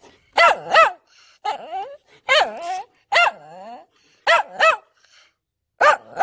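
A dog barking: about ten short, high-pitched barks, several of them in quick pairs.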